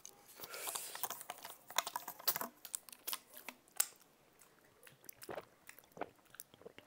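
Close-miked eating sounds: chewing and wet mouth clicks coming irregularly, busiest in the first four seconds and sparser after, as one eater drinks water from a bottle.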